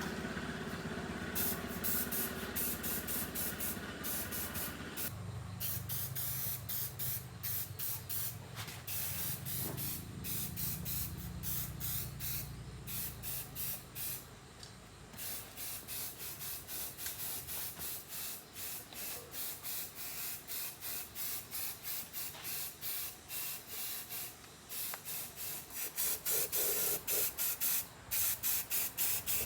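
Rhythmic hissing, scraping strokes, about one and a half a second, like hand work with an abrasive on metal, over a low hum in the first half.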